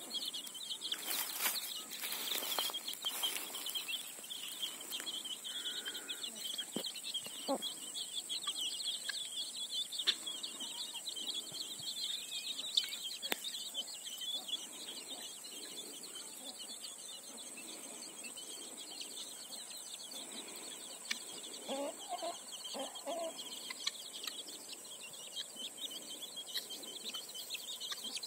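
A brood of young chicks peeping continuously in a dense high chatter, with a hen giving a few low clucks, once about a quarter of the way in and again in a short run about three quarters through. A steady high tone runs underneath.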